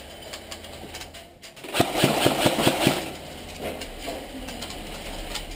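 Airsoft electric gun, a home-built Saiga 12K-style AEG shotgun, firing a rapid string of about seven shots in a little over a second, each a sharp mechanical clack over the whir of its gearbox motor, about two seconds in.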